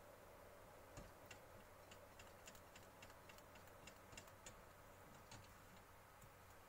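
Near silence with faint, irregular light ticks and clicks of a silicone spatula against a stainless steel saucepan as thick soup is stirred.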